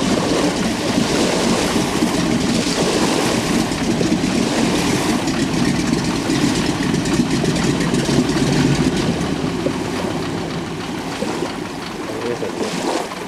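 A floatplane's radial engine running steadily at low power as the plane taxis on the water.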